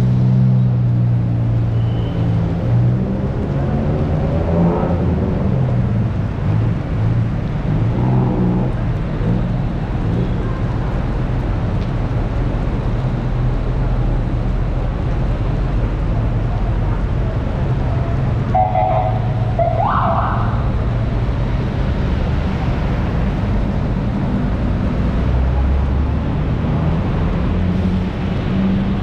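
Heavy rain falling, with the steady low hum of vehicle engines in traffic beneath it. A short rising tone sounds about two-thirds of the way through.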